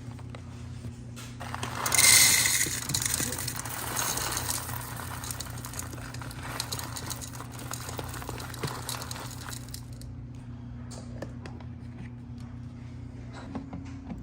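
Handling of the espresso machine's parts: a rustling, rattling noise swells about two seconds in and fades out over the next several seconds. It is followed by scattered small clicks as a part is pushed down and twisted into place. A steady low hum runs underneath.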